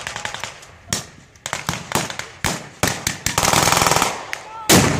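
Blank-firing small arms in a mock WWII battle: scattered single rifle shots, a short rapid machine-gun burst about three and a half seconds in, and a loud report near the end.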